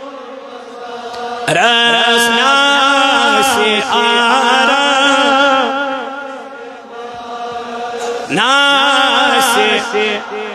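A man singing a Kashmiri naat (a devotional song in praise of the Prophet) into a microphone. He sings long phrases with a wavering, ornamented pitch, with new phrases beginning about a second and a half in and again about eight seconds in.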